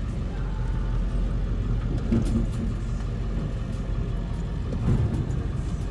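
Pickup truck rolling slowly, heard from inside the cab: a steady low rumble of engine and tyres, with a few light clicks.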